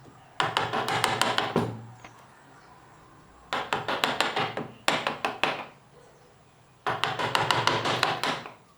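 A woodworking hand tool working pine in four bursts of quick, sharp strokes, several strokes a second, with short pauses between.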